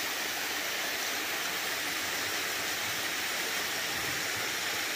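Waterfall spilling down stepped rock ledges: a steady, even rush of water.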